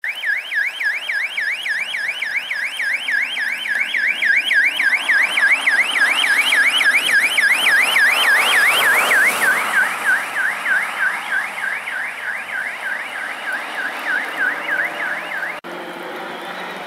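Rapid yelping siren on a Suzuki SUV with a roof light bar, sweeping up and down about three times a second. It grows louder with the car's engine and tyre noise as the car approaches and passes, then fades. It cuts off abruptly near the end.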